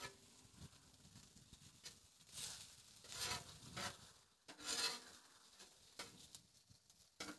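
Metal spatula scraping and pushing onions across the steel cooktop of a Blackstone griddle, in a few short rasping strokes from about two to five seconds in.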